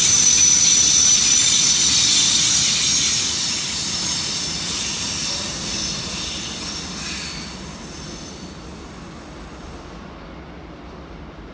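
Steel freight train's wagons rolling past with a high-pitched metallic wheel squeal over the rumble of the wheels. It fades steadily as the last wagons pull away, and the squeal dies out about ten seconds in.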